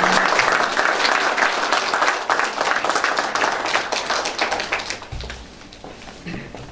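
Audience applauding, loudest at first and dying away about five seconds in.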